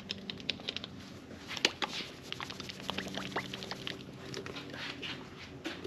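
Small can of G2 brake caliper paint being shaken by hand, giving a fast, uneven run of small clicks and taps as the paint and can rattle.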